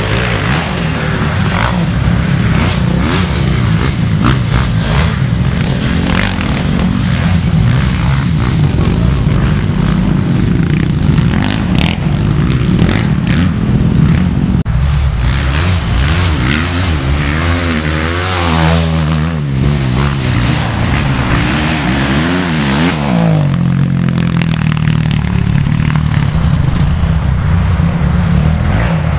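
Motocross bike engines revving hard. The pitch climbs and drops again and again as the riders accelerate and shift, most clearly in the middle.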